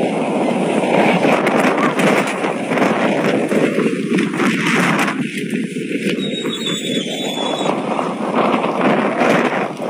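Storm wind gusting hard over the microphone, a dense rushing noise that surges and eases, with rain in it.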